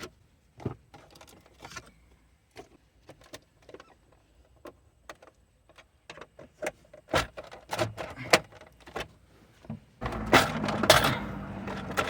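Plastic interior trim being pried loose by hand: scattered small clicks and knocks of clips and panel edges, busier about seven seconds in, then a louder stretch of scraping and rattling plastic near the end.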